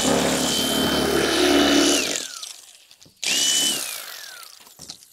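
Electric fillet knife running with a steady high whine as it cuts the bloodline from a striped bass fillet. It is let off about two seconds in and winds down with a falling whine, then gets one short burst just after three seconds that also winds down.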